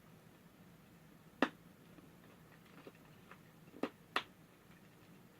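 Three sharp clicks from eating a melon candy, one about a second and a half in and two in quick succession just before the four-second mark, over a faint steady low hum.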